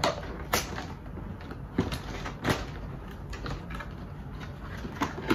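A cardboard box being opened by hand: its flaps are pulled and rubbed, with a few sharp, irregular scrapes and snaps of the card.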